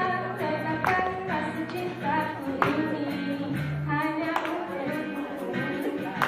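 A woman singing into a microphone to an acoustic guitar, with sharp strokes every second and a half or so.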